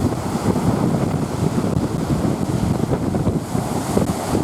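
Strong wind buffeting the microphone in a heavy, unsteady rumble, over the hiss of lake waves breaking.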